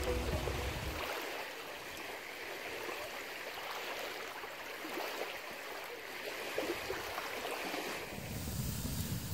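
Small waves lapping and washing against a stony river shore, a steady splashing hiss of water. A low rumble comes in near the end.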